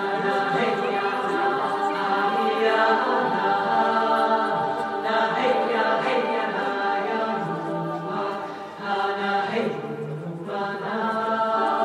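Choral music: several voices holding long, chant-like notes that change every few seconds, with a brief dip in loudness about eight and a half seconds in.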